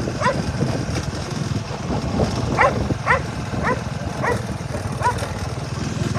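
A dog barking over and over, short barks dropping in pitch, about two a second. Under it runs a steady low rumble.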